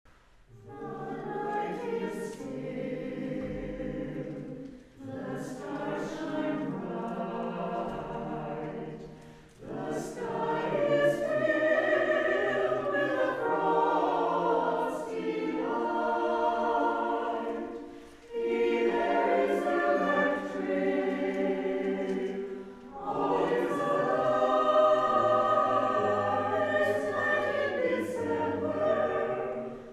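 Mixed choir of men's and women's voices singing a slow choral piece in long phrases, with short breaks between phrases.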